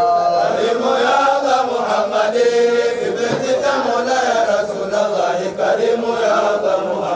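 Voices chanting an Arabic Islamic devotional song in praise of the Prophet Muhammad, a slow melody that wavers up and down.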